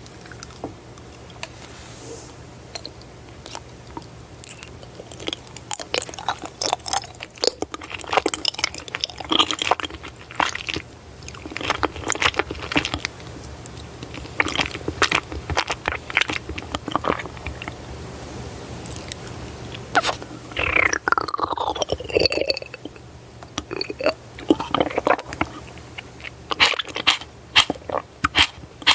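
Close-up eating sounds: chewing and biting with dense crisp crunches and clicks. Past the middle there is a drawn-out falling squeak.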